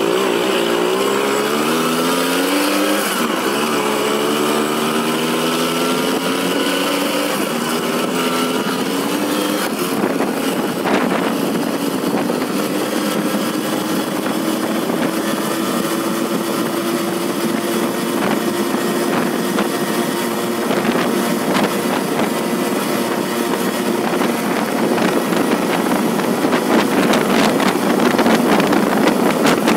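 Sachs Komet 50cc two-stroke moped engine accelerating flat out toward top speed. Its pitch climbs, drops back at gear changes about 3 and 10 seconds in, then rises slowly and holds high. Wind buffeting grows louder near the end.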